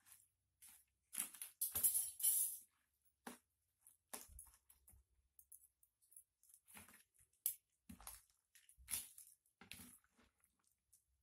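Mukbang eating sounds: a metal spoon and fork scraping and tapping in a plastic bowl of pecel, mixed with chewing, in irregular short bursts. The loudest stretch comes about two seconds in.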